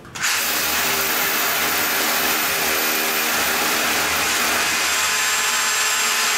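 Electric hammer drill boring into a wall, starting up about a quarter second in and running at a steady full speed.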